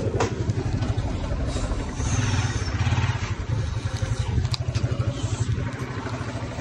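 Motorcycle engine idling with a steady low putter, getting louder for a moment about two seconds in.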